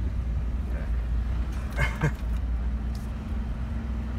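Jeep driving up a dirt trail, heard from inside the cab: a steady low engine and tyre rumble, with one short sharper sound about two seconds in.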